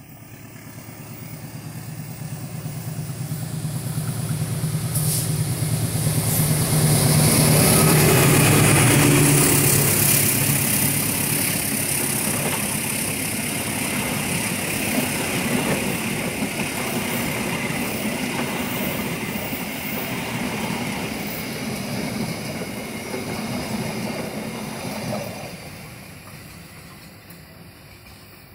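A CC206 diesel-electric locomotive hauling a train of stainless-steel passenger coaches passes close by at speed. The locomotive's engine hum builds to its loudest about eight seconds in, then the coaches' wheels run steadily over the rails until the last coach goes by and the sound drops off and fades about 25 seconds in.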